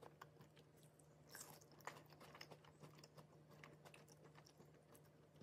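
A person chewing a bite of crisp pan-fried potato dumpling: faint crunchy clicks in quick succession, thickest about a second and a half in.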